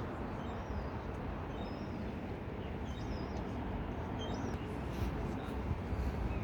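Steady low outdoor rumble with small birds chirping in short, scattered high notes.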